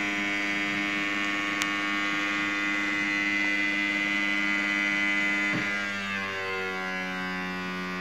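Cheap robot vacuum cleaner's small motor running with a steady whining hum, with a light click about one and a half seconds in. About six seconds in its pitch slides down and settles lower as the machine pushes up against a table leg.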